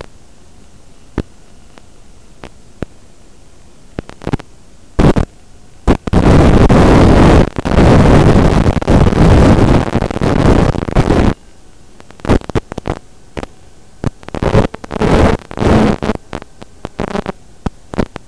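Static hiss from an analog FPV video link, broken by sudden loud bursts of noise as the signal breaks up, with one long stretch of loud static from about six to eleven seconds in.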